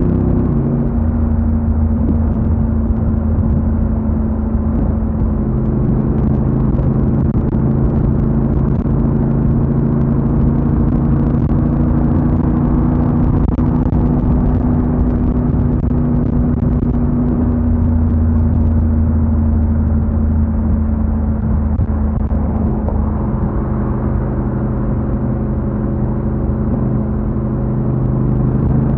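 Honda NC750X's parallel-twin engine running steadily while the motorcycle is ridden, with road and wind noise beneath. The engine note shifts just after the start and again near the end.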